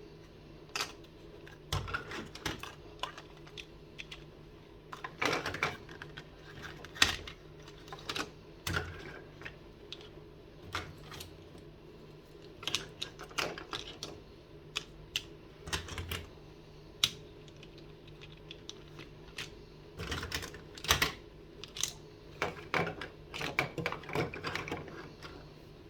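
Small toys handled and set down on a hard surface: irregular sharp clicks and taps, some in quick clusters, over a faint steady hum.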